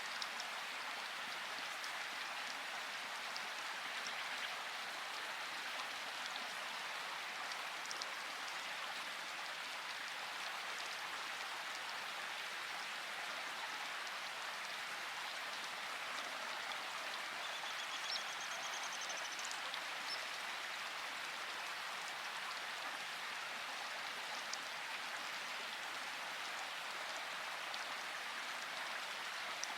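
Steady rainfall, an even hiss of rain with scattered individual drops ticking on a surface.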